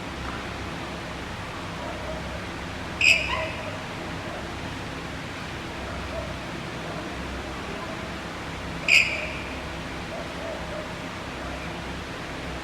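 Two sharp metallic clanks of gym weights, about six seconds apart, each ringing briefly, over a steady hum of gym background noise.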